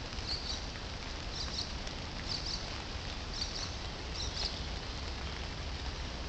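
Steady rain falling on forest foliage, with a short high chirp repeated five times, about once a second.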